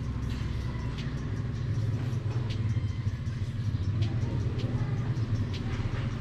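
A motor vehicle engine running steadily nearby, a low rumble, with a few faint light ticks above it.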